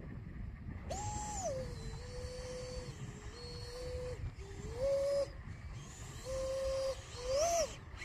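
FW Zeus RC plane's motor whining on the runway, its pitch holding steady and stepping up and down several times as the throttle is blipped, over low wind rumble.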